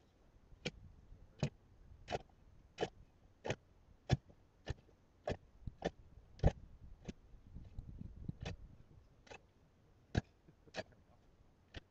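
Hand-cranked ice auger boring through lake ice: a sharp crunching click with each turn of the crank as the blades cut in, about one and a half a second, coming more sparsely near the end.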